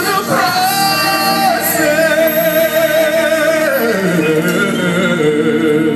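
Live gospel singing: a voice holds a long note with vibrato over sustained band chords, then glides down to a lower held note about four seconds in.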